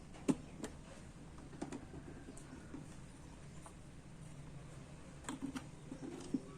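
Scattered light clicks and taps from small parts being handled, irregular and a few seconds apart, over a quiet room background.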